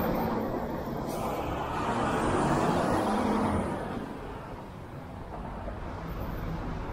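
Road traffic noise of a city street heard from a moving bicycle: a steady rush of passing vehicles that swells about two to three seconds in, then eases off.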